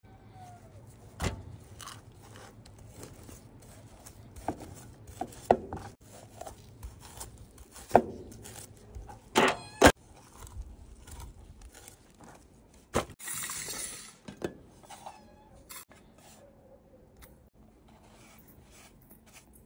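Kitchen handling sounds: scattered knocks, clinks and scrapes of dishes and utensils, with a short hiss about thirteen seconds in.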